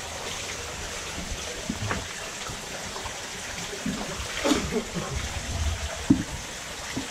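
White plastic bucket dipped into the water over a boat's side and lifted out, water sloshing and splashing in and out of it, with a few sharper splashes in the second half.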